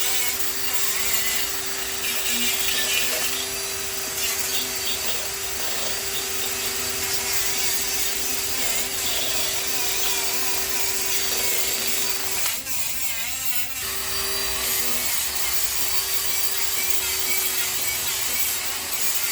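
Electric sander running against the metal of a rusty rear axle, a steady motor whine with a rough scraping hiss. The tool drops out for about a second about two-thirds of the way through, then runs on.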